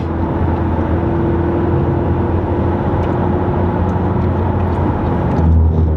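Cabin sound of a McLaren sports car cruising at highway speed: a steady low engine drone under tyre and road noise, swelling a little near the end.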